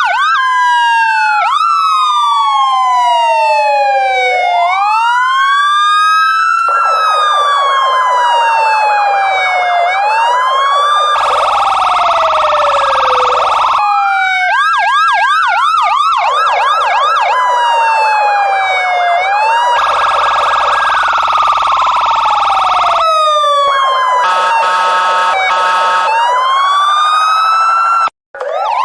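Police siren cycling through its modes: a slow wail rising and falling, stretches of fast yelping warble, and harsh blaring stretches in between. It cuts out for a moment near the end and starts again with a rising wail.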